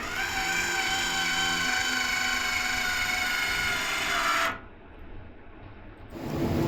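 An electric power tool whining steadily at full speed, then switched off after about four and a half seconds. About six seconds in, a louder, rougher machine noise with a low hum starts.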